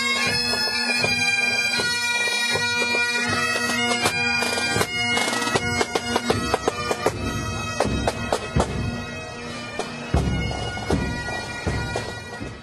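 Pipe band of Great Highland bagpipes playing a marching tune over a steady drone, with sharp percussive beats joining about four seconds in. The music fades out near the end.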